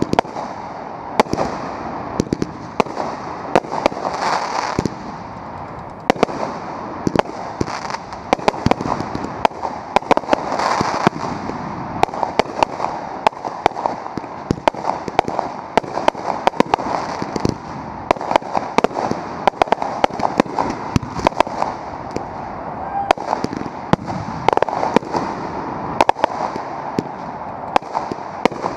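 Consumer fireworks display: cakes, comets and peony shells launching and bursting in quick succession. A dense run of sharp bangs goes on throughout, with crackling between them.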